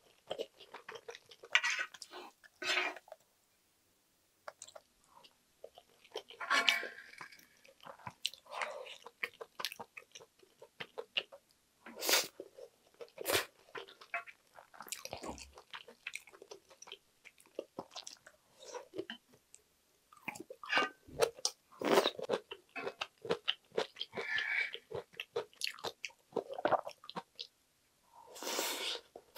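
Close-miked chewing and mouth sounds of someone eating spicy fried rice, with the clicks and scrapes of a wooden spoon scooping rice off the pan.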